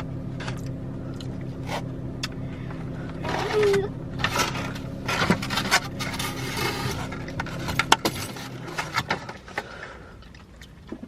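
Eating from a takeout bowl: a fork scraping and clicking against the container, with rustling, over a steady low hum that stops about eight seconds in.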